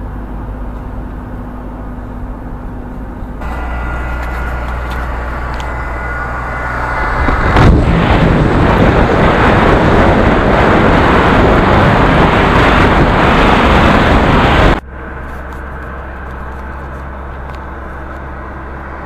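Car driving on a wet highway: a steady hum of engine and tyres on wet asphalt. About seven seconds in it swells into a much louder rush of wind and tyre spray, as with the window open, and it drops suddenly back to the quieter cabin hum about fifteen seconds in.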